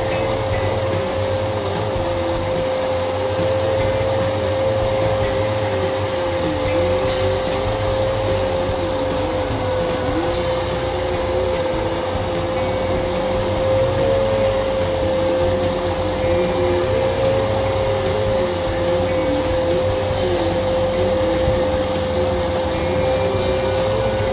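Vacuum cleaner running continuously with a steady high whine, while a lower tone under it wavers up and down.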